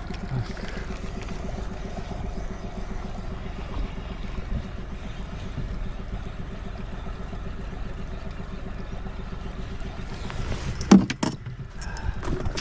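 Boat motor running steadily, with a short cluster of loud knocks about eleven seconds in.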